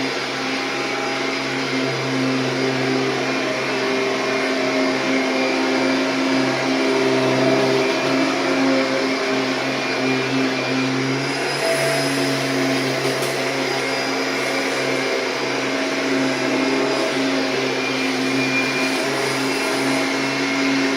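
Kirby G6 upright vacuum cleaner running as it is worked across a mattress: a steady motor hum that wavers slightly in pitch, with a little more hiss about twelve seconds in.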